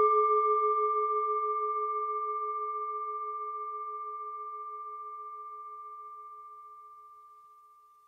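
Singing bowl ringing out after a single strike, with a slow wavering pulse, fading steadily to almost nothing over about eight seconds; it is the bowl struck to open a meditation session.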